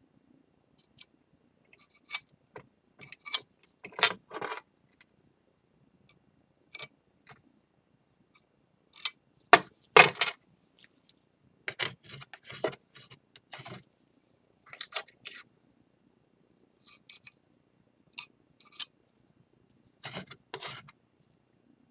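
Scattered small clicks, taps and short scrapes of hand tools and ceramic bowl pieces being handled on a work surface while a flour-and-lacquer paste is worked. The loudest cluster comes about ten seconds in.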